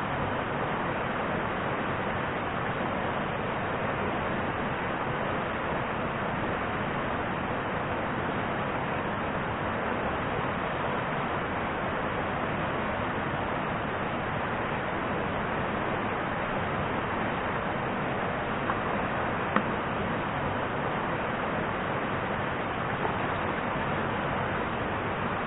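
Steady rush of river water, an even hiss with no rhythm, broken by a few faint clicks near the end.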